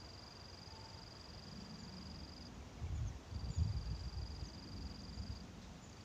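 An insect's high, steady buzzing whine on one pitch, running about two and a half seconds, breaking off, then starting again for about two seconds more. Low rumbling noise underneath is loudest a little past the middle.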